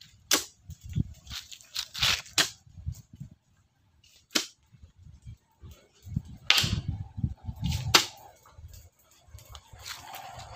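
Irregular sharp knocks and clacks, single strikes spaced unevenly, the loudest about every one to two seconds.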